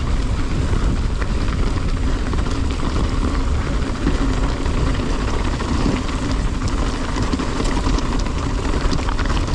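Mountain bike riding down rough singletrack: wind buffeting the microphone, with a steady rumble of tyres on the trail and scattered rattling clicks from the bike.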